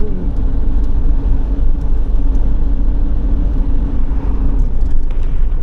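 Steady engine and road rumble heard from inside a moving campervan's cab, deep and even throughout.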